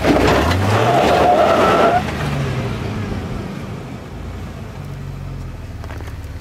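An off-road 4x4's engine revs up while the vehicle crawls over trail rocks, with loud rough noise over it for about two seconds. The revs then drop suddenly and the engine runs lower and steadier.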